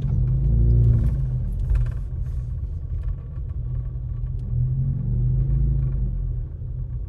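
Low, steady rumble of a car driving slowly on a wet street, heard from inside the cabin, with a faint engine hum rising above it now and then.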